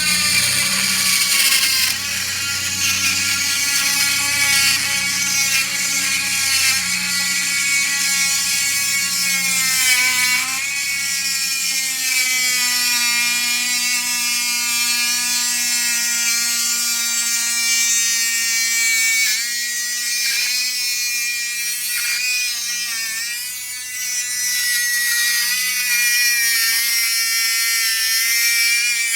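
Dremel Stylo+ rotary tool with a 1/8-inch tile cutting bit drilling into an Atlantic calico scallop shell. It makes a steady high motor whine whose pitch slowly sags and wavers, dipping a few times in the second half as the bit bears on the shell.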